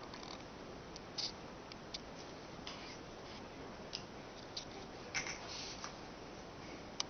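A series of short, faint nasal sniffs, spaced irregularly, with a longer breathier sniff about five seconds in.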